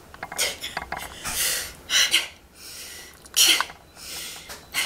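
Several short, forceful breaths in quick succession, hissing in and out: people rehearsing the anti-G straining breath on the cue 'ready, hit it', a deep breath in while flexing.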